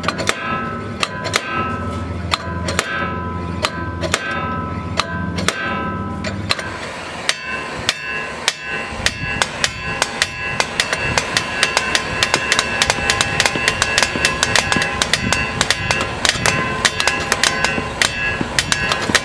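Repeated metal-on-metal hammer blows and slide-hammer strikes on a rust-seized front wheel hub bearing assembly that is stuck in its steering knuckle, heard over background music. The blows come thicker and faster from about seven seconds in.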